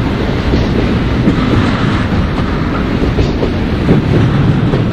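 Double-stack container cars of a Union Pacific intermodal freight train rolling past: a loud, steady rumble of steel wheels on rail with scattered clicks.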